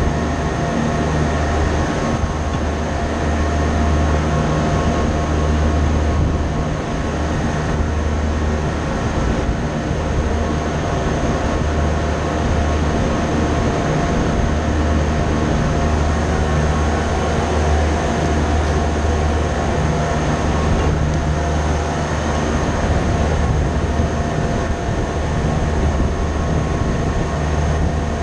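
Steady machinery drone: a deep hum with a few faint steady whining tones above it, running without a break.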